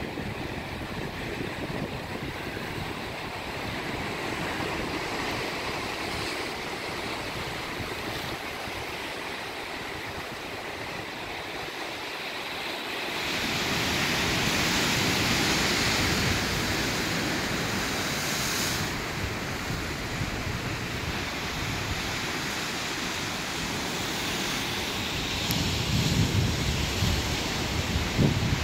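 Ocean surf washing and breaking over rocks at the foot of a sea cliff, a steady rushing hiss that swells louder about halfway through. Gusts of wind buffet the microphone near the end.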